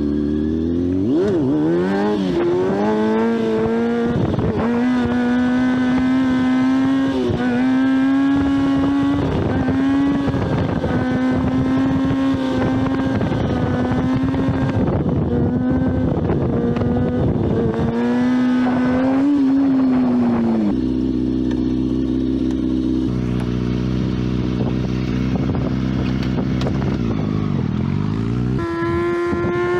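Motorcycle engine out on a ride: it revs up over the first couple of seconds and holds a steady note for most of the ride. About twenty seconds in it drops back to a low, near-idle note, and it revs up again near the end.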